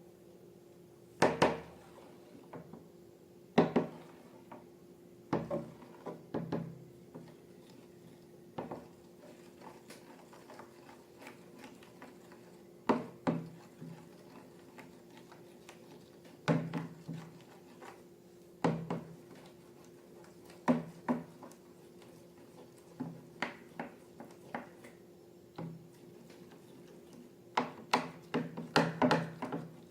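A series of sharp taps and clicks of hard objects, one every couple of seconds and bunched together near the end, over a faint steady hum.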